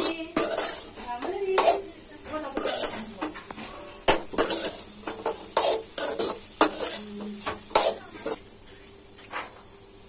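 A perforated steel ladle scraping and knocking against an aluminium kadai as dry-fried crumbled goat blood is stirred, in irregular strokes about one or two a second. The strokes stop about eight seconds in.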